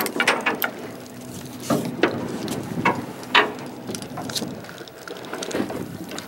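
Fishing boat at sea: a low steady hum from the boat with water sloshing against the hull, and short sharp knocks and slaps scattered through it, the loudest about three and a half seconds in.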